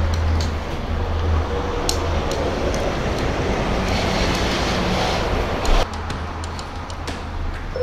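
Disney Skyliner gondola cabin travelling along its cable, heard from inside: a steady low hum and rumble with a few light clicks and rattles. The noise drops suddenly about six seconds in.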